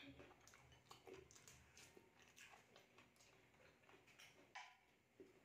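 Faint chewing of a mouthful of roast chicken, with soft, irregular wet mouth clicks and a sharper click about four and a half seconds in.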